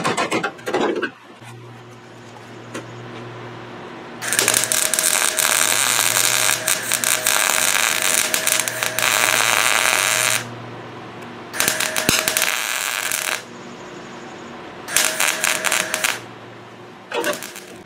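Hammer blows on car-body sheet metal, knocking a seam flange down, then a MIG welder crackling as it lays a weld on the seam. There are three runs of welding: a long one of about six seconds, then two short ones, with a low steady hum between them. The hammer blows start again near the end.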